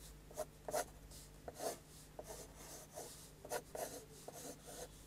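Pencil scratching on paper: a string of short, light, irregular strokes as an ellipse is sketched freehand.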